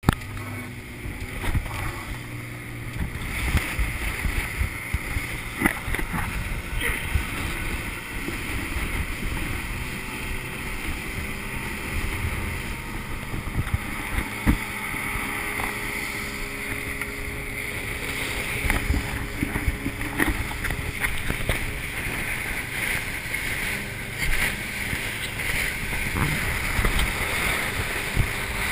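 Center-console fishing boat running at speed through chop: a steady wash of engine, wind and rushing water, with frequent thuds as the hull hits the waves.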